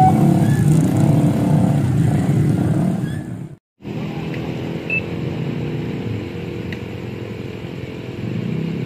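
Many motorcycle engines idling and revving together at a level crossing, with the crossing's two-tone alarm stopping right at the start. After a short gap a little over a third of the way in, a steadier, quieter engine drone runs on.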